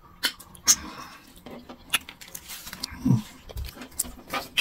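Wet eating sounds of fufu and soup eaten by hand: scattered lip smacks and finger licks, with a brief low vocal sound about three seconds in.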